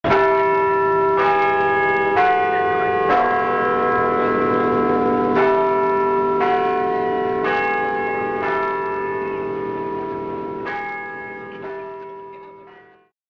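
Bells ringing: about ten strikes roughly a second apart, on bells of different pitch, each ringing on under the next. The sound slowly fades and cuts off shortly before the end.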